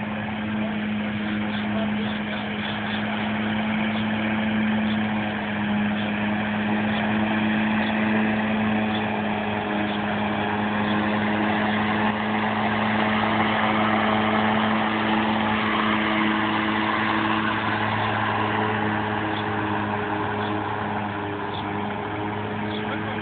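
An autonomous robotic lawnmower running steadily as it drives across grass: a constant machine hum that grows louder toward the middle and eases slightly near the end.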